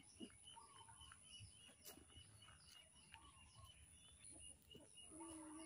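Near silence with faint bird chirping: a short high note repeated about three times a second, with a few other faint calls.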